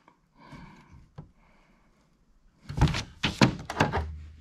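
A quick cluster of several knocks and thumps from about three seconds in, lasting about a second and a half: handling noise as the multimeter test probes are lifted and moved around on the workbench beside the circuit board.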